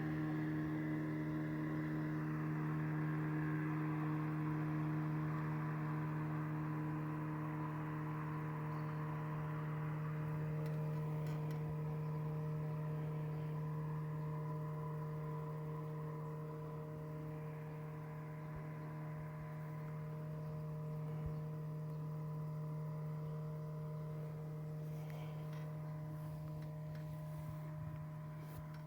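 Boat motor running at a steady speed, a constant hum that holds one pitch throughout.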